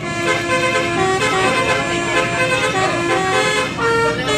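Bus 'telolet' musical horn playing a tune: a run of loud, steady horn notes stepping up and down in pitch.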